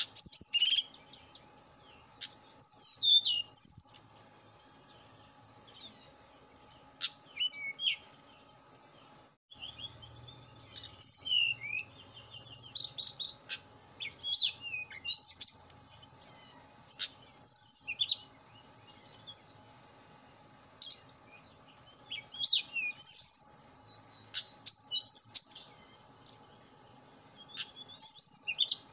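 A tledekan gunung, a blue-and-orange flycatcher, singing in short, quick phrases of high chirps and twittering whistles with pauses between them. A faint steady hum runs beneath.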